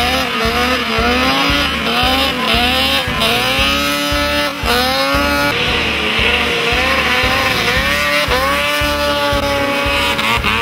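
Snowmobile engine running at high revs as it skims across water, its pitch repeatedly rising and falling, over the steady drum beat of background music.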